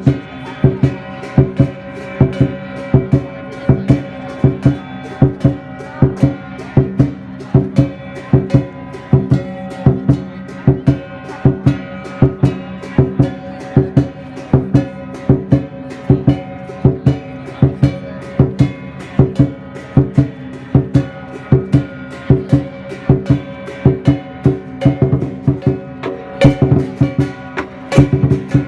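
Chinese lion dance percussion: drum strikes in a steady, fast beat, with metal percussion ringing on between them.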